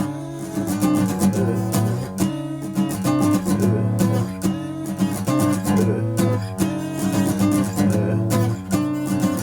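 Guitar being strummed in a punk song, with repeated chord strokes over sustained low notes.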